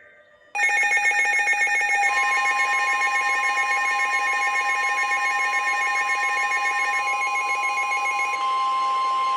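Weather radio alert sounding ahead of a new NOAA Weather Radio warning. Rapid pulsing alert beeps from the receiver start abruptly about half a second in. About two seconds in, the steady single-pitch warning alarm tone, near 1 kHz, joins them and holds.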